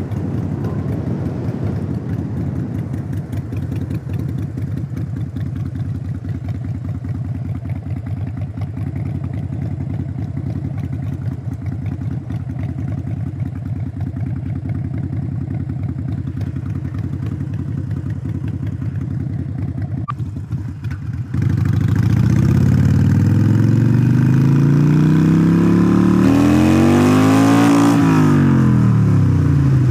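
The 883 cc V-twin engine of a 2017 Harley-Davidson Iron 883 Sportster in Stage 1 tune with Vance & Hines Shortshots exhaust, heard riding: running steadily at low revs for about twenty seconds, then much louder, its pitch climbing as the bike accelerates hard, peaking and dropping off near the end.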